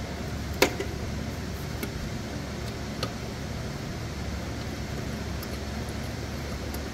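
Steady low background hum, with a sharp metallic click about half a second in and a fainter one about three seconds in, as a belt-guide bolt is threaded by hand into the riding mower deck's idler pulley bracket.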